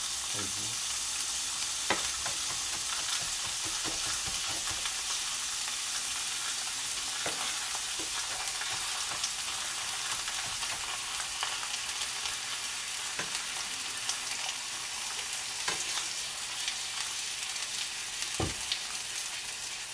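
Chicken breast steaks sizzling steadily in a frying pan, with a few sharp knife knocks on a cutting board as green onion is chopped.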